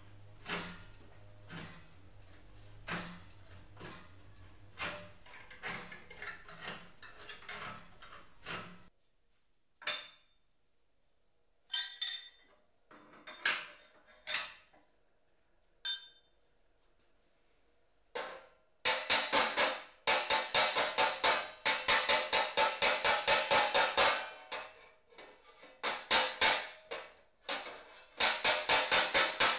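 Aviation snips cutting sheet steel with a run of crisp clicks, then a few separate metal clinks. Then rapid, steady hammer blows on the thin sheet-steel shell of a tack-welded gas tank, several a second and ringing, which is the loudest part.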